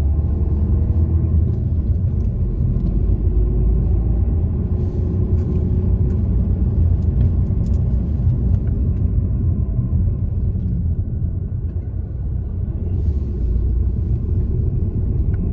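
Steady low rumble of a car's engine and tyres heard inside the cabin, with a faint engine note rising over the first few seconds as the car picks up speed out of a right turn.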